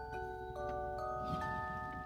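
Soft background music: chords of clear, held tones whose notes change about every half second.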